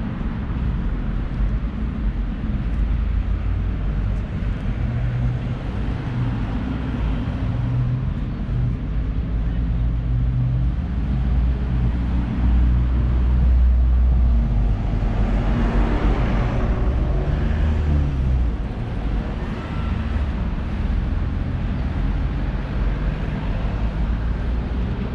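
Road traffic: vehicle engines humming over a steady low rumble, with a bus passing close about two-thirds of the way through, its engine note falling as it goes by.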